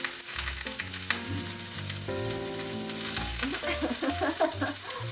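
Pasta being stirred with chopsticks in a frying pan of hot oil, sizzling with a steady dense crackle. Background music with sustained notes plays underneath.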